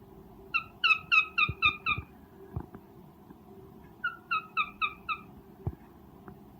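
Cockatiel giving its mating call: a short, pitched chirping note repeated about four times a second in two runs, six notes then five, with a pause between.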